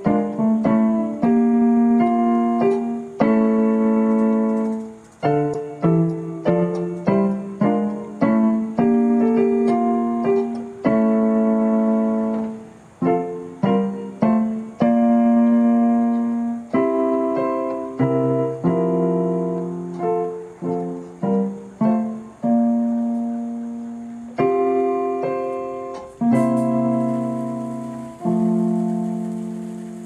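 Solo piano music, a steady run of single notes and chords, each struck and then fading.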